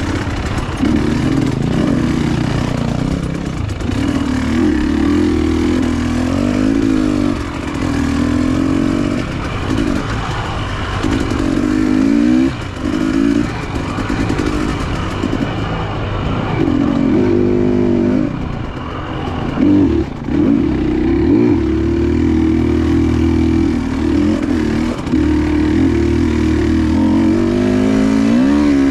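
Dirt bike engine running along a trail under constantly changing throttle, its pitch rising and falling as the rider opens and closes the gas, with brief drops and a rev-up near the end.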